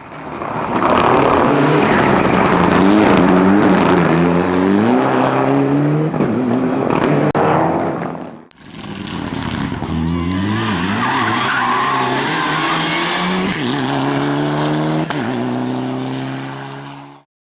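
Race car engine revving hard, pitch climbing and dropping sharply again and again through gear changes, with tyre noise. The sound breaks off about halfway and starts again with a car at full throttle, then cuts off suddenly near the end.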